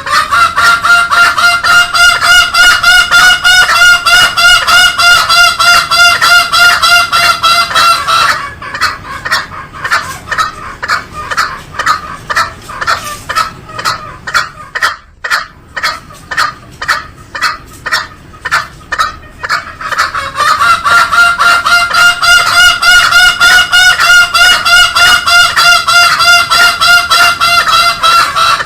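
Green junglefowl calling in rapid repeated nasal notes, several a second. There is a long dense run, a sparser broken stretch in the middle, then another dense run near the end.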